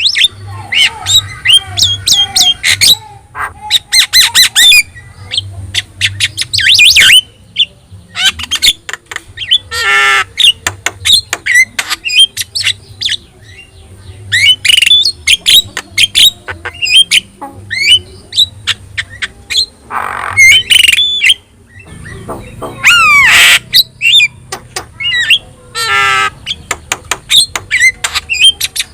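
Javan myna (jalak kebo) singing a rapid, varied stream of sharp clicks, gliding whistles and harsh squawks, broken by short pauses.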